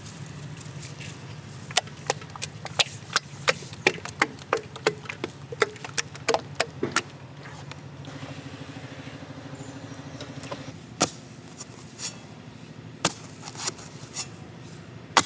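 Thick rice-flour batter stirred by hand in a vessel, giving a quick, irregular run of wet slaps and clicks, two to three a second. It is followed by a few single strikes of a hoe biting into soil, about a second apart, over a steady low hum.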